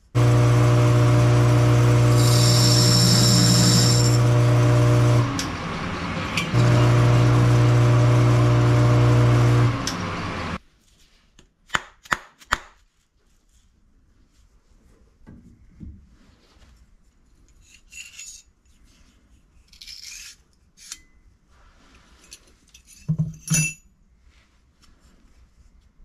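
Metal lathe running with the brazed cast iron pulley turning on it: a steady motor hum under a scraping, rasping sound of the metal being worked, with a high ringing for a couple of seconds. It dips briefly about five seconds in and stops about ten and a half seconds in, followed by a few sharp metal clinks, light handling noises and a louder clunk near the end as the pulley is handled on its mandrel.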